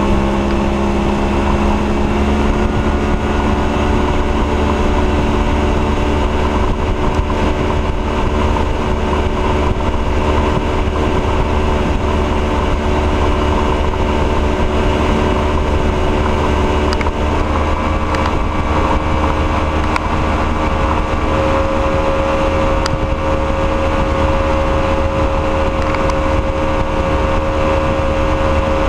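Fletcher Arrowflash speedboat's engine running steadily at speed, over the rush of its wake. The engine note shifts a little about seventeen seconds in, then holds steady again.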